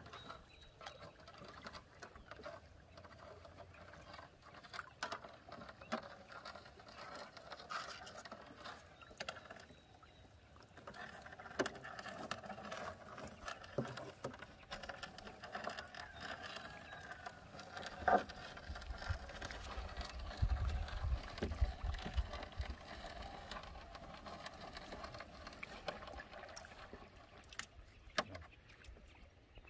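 Scattered knocks and taps in a small fishing boat, with water patter, as a gill net is hauled in and worked by hand.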